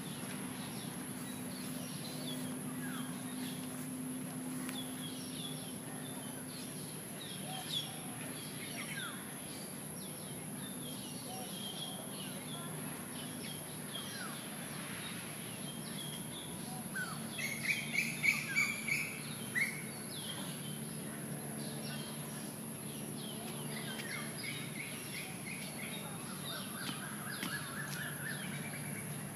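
Several birds chirping and calling in the trees, with a louder run of quick, repeated calls about two-thirds of the way in, over a steady low hum and a constant high whine.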